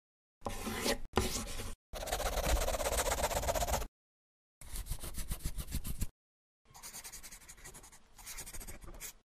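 Pen scribbling on paper in five quick bursts of back-and-forth strokes, with short silences between them. The longest and loudest burst comes about two seconds in, and the last ones are quieter.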